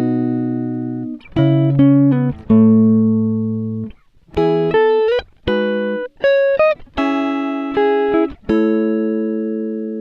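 Background music: solo guitar chords struck one after another and left to ring out and fade, about a dozen in all, a few with a slide up in pitch.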